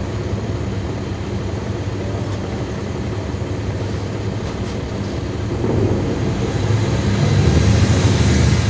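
Caterpillar C13 ACERT diesel engine of a 2009 NABI 40-SFW transit bus, heard from the rear seats inside the bus. It runs steadily, then gets louder from about halfway through as the engine works harder.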